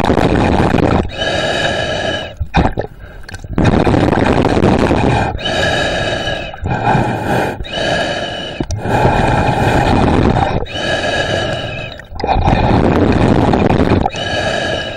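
A snorkeler breathing loudly through a snorkel tube: long drawn breaths in and out, alternating, each lasting one to two seconds with brief gaps between them.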